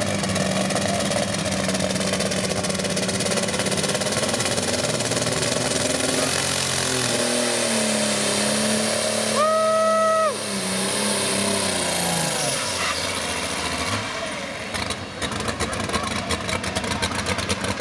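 Turbocharged diesel engine of a Case IH pulling tractor running hard under load. Its pitch falls and rises midway, a short steady high tone sounds about ten seconds in, and it turns crackly near the end.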